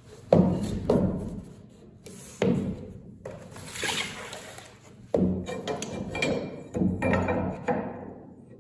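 Thumps and knocks from handling on wooden deck boards laid over a steel frame: about six separate knocks, some ringing low, with a scraping slide in the middle as a box of screws is pushed across the board.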